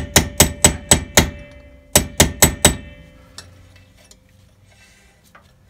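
A hammer tapping the original metal cap onto a 1971 VW Beetle's front wheel hub to seat it: a quick run of about six ringing metal strikes, a short pause, then four more about two seconds in.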